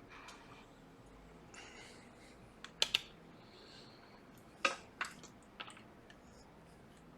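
Scattered light clicks and taps of small tools being handled on a repair bench, with two sharp clicks close together about three seconds in and a few more a couple of seconds later.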